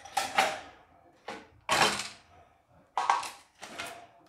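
Objects being handled and set down: a series of about six short clattering knocks, the loudest a little under two seconds in.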